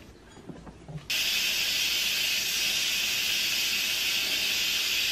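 Instant Pot electric pressure cooker venting steam through its pressure release valve, a manual release of pressure at the end of cooking. A few faint clicks come first, then a loud, steady hiss starts suddenly about a second in.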